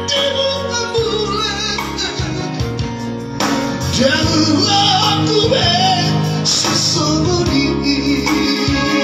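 Male vocal trio singing live into microphones over amplified band backing, the voices holding long, wavering high notes.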